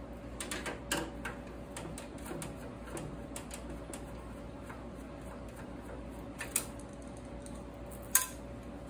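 Light clicks and ticks of screws and metal parts being worked with a screwdriver and by hand inside a steel computer tower case. A quick run of clicks comes in the first second or so, then single clicks, the sharpest about six and a half and eight seconds in.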